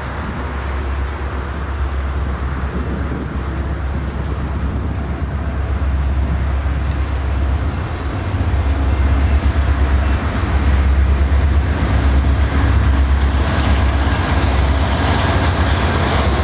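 Diesel locomotives leading a freight train approach with a steady low engine rumble that grows louder about halfway through; wheel and rail noise builds near the end.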